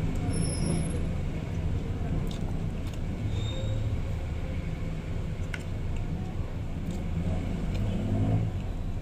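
A steady low rumble throughout, with a few light clicks of a metal fork against a plate as rice is eaten with the mouth closed.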